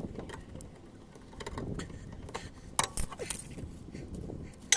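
Metallic clicks and clinks of water-pump pliers gripping and releasing the handbrake lever and return spring on a rear brake caliper, with the sharpest click near the end.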